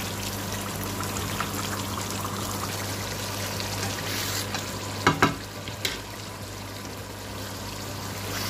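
Chicken karahi sizzling in the pan as it is stirred and fried down with a spatula after the yogurt has gone in. About five seconds in, the spatula knocks twice in quick succession against the pan, with a lighter knock just after.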